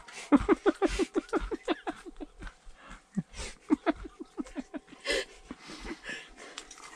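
A person laughing in quick breathy pulses, about seven a second, in two long runs with a short break between them and a sharp breath near the end.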